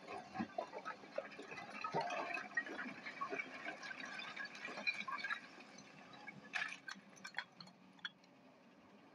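Loose quarry stone clattering and sliding as a hydraulic excavator's bucket digs into a rock pile: an uneven run of small knocks and rattles, with a few sharper clicks about two thirds of the way in.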